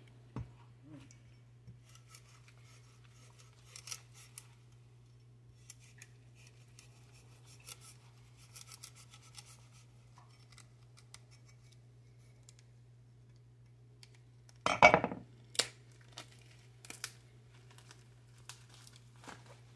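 A plastic-wrapped young coconut handled on a wooden chopping board: faint rubbing and scratching, with one short, louder crackle about fifteen seconds in and a few sharp ticks after it, over a steady low hum.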